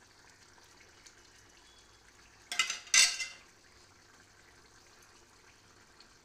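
A steel spoon clattering against the metal kadai twice, about two and a half and three seconds in, the second the louder, over a faint steady hiss from the curry simmering on the gas stove.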